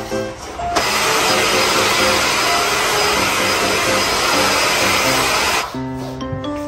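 A vacuum cleaner runs for about five seconds, starting and stopping abruptly, over background music.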